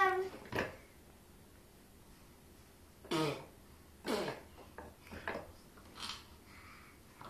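A small child's short, breathy voice sounds: one just after the start, then after a quiet pause four more about a second apart, each dropping in pitch, rather like giggles.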